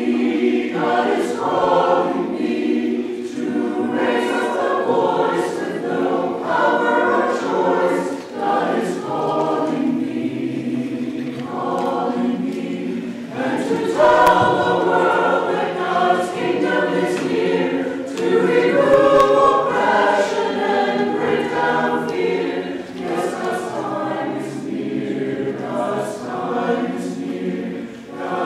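Mixed choir of men's and women's voices singing a sacred anthem in parts, with the sung words' consonants audible and the sound swelling louder about halfway through and again a few seconds later.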